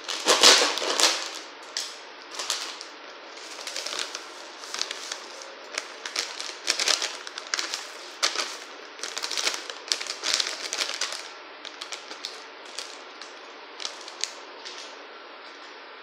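Cake-mix packet crinkling and crackling as it is torn open, loudest about half a second in, then shaken and emptied into a plastic bowl. The crackles come in quick irregular bursts and thin out near the end.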